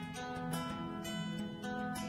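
Background music: plucked acoustic guitar playing a steady, repeating pattern.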